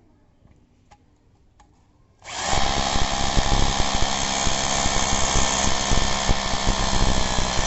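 DeWalt D25133K rotary hammer drill starting up about two seconds in and running steadily at full speed, in hammer-drill mode boring into concrete.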